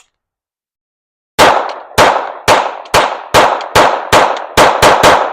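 Taurus TX22 .22 LR pistol fired in a rapid string of about ten shots, each with a short ringing tail, cycling without a malfunction.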